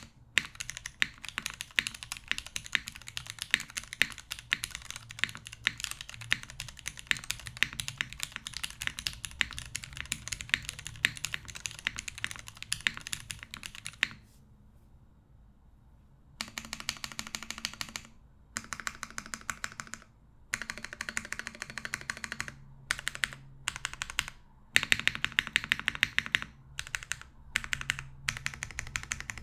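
Mechanical keyboard typing: vintage Cherry MX Black linear switches, thinly lubed, in a top-mounted aluminum-plate keyboard with GMK keycaps and no foam. Fast continuous typing for about fourteen seconds, a pause of about two seconds, then bursts of typing broken by short gaps.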